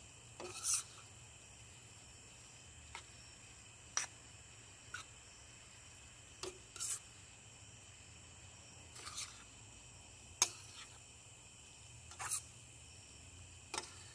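Metal spoon scraping and knocking against a stainless steel skillet as a pan of noodles and vegetables is stirred, a short stroke every second or two. Crickets chirr steadily underneath.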